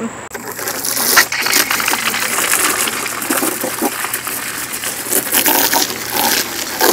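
Water from a garden hose spray nozzle hitting the hard plastic pockets of a vertical planter tier, rinsing out soil residue. The spray starts just after the beginning and keeps up a steady spattering hiss.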